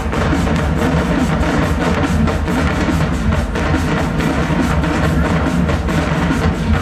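Marching band music driven by its drumline: bass drums and snares pounding a steady beat.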